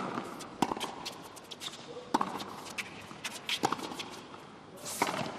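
Tennis ball bounced on a hard court three times, about a second and a half apart, as a player readies to serve, over faint arena hubbub; a louder hit near the end.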